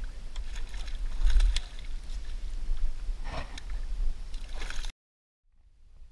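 Hooked peacock bass thrashing and splashing at the surface beside the boat as it is brought in and grabbed, several sharp splashes over a low rumble. The sound cuts off abruptly about five seconds in.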